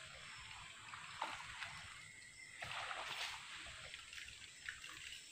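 Faint splashing of a topwater fishing lure being reeled across still swamp water, a few small splashes over a steady background hiss.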